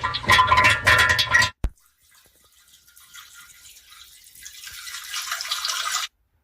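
Busy music with a heavy bass stops abruptly about a second and a half in. A hissing water stream follows, a peeing sound effect of urine into a toilet, growing steadily louder before cutting off suddenly near the end.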